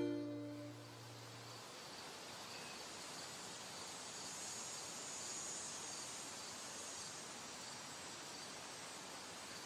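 The tail of a song fades out in the first second or so, leaving faint pine-woods ambience: a soft steady hiss with a faint high chirp repeating at an even pace.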